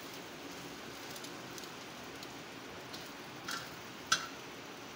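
An egg omelette sizzling steadily in oil on a flat tawa, with a metal spatula clicking sharply against the pan twice near the end as the omelette is turned.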